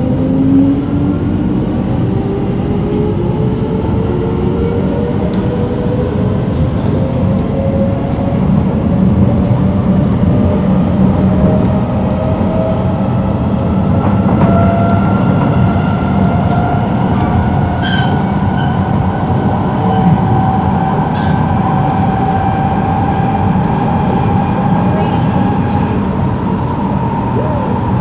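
MRT train accelerating away from a station: the traction motors whine, several tones climbing steadily in pitch over the steady rumble of the car on the rails. A few sharp clicks come in the second half.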